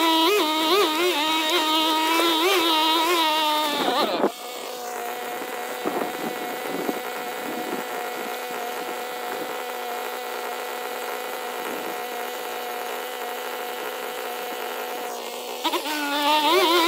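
Background music with a wavering singing voice, cut off after about four seconds by a small petrol engine running steadily at a constant pitch; the music comes back in near the end.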